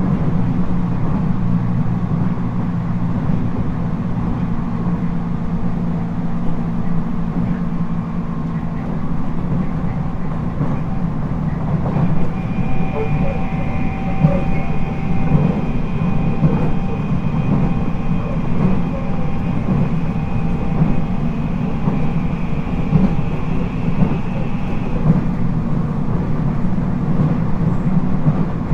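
JR East 719 series electric multiple unit heard from inside the car while running at speed: a steady low rumble of motors and wheels on rail, with faint rail clicks. A high steady whine comes in about halfway and stops a few seconds before the end; this car is noted for an unusual jet-like noise.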